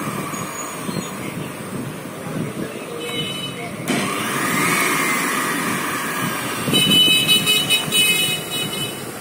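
Kenwood centrifugal juicer motor switched on at its control knob, whining up in pitch and then winding back down. Near the end there is a louder stretch with a high, rattling whine.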